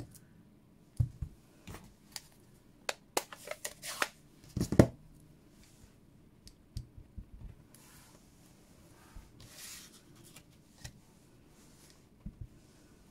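Hands handling a clear stamp and acrylic stamp block on a craft table: a run of sharp plastic clicks and taps, the loudest a knock about five seconds in. After that come softer rustles and light taps as the block is pressed onto an ink pad.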